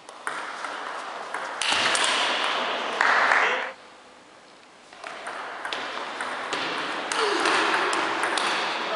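Table tennis rallies: the celluloid ball clicking off the bats and the table, over a noisy haze of crowd sound. The first rally ends about three and a half seconds in with a loud burst. After a short lull a new rally starts about five seconds in.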